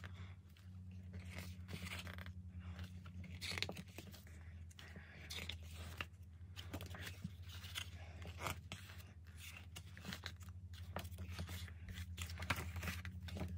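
Pages of a photo book being turned and handled by hand: a string of soft paper rustles and flicks, over a steady low electrical hum.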